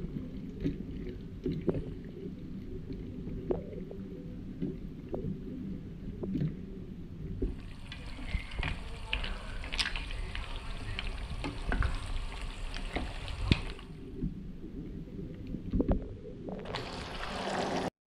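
Wooden spoon stirring shell pasta stew in a metal pot: wet sloshing of the broth, with scattered light knocks and scrapes of the spoon against the pot.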